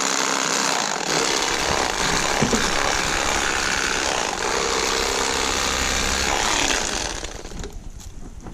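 Corded electric fillet knife running steadily as its blades cut through a crappie, for about seven seconds before it is switched off.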